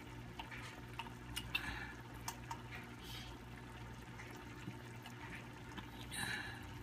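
Tomato and pork sauce simmering in a frying pan, with small scattered bubbling pops and ticks. A brief louder noise comes about six seconds in.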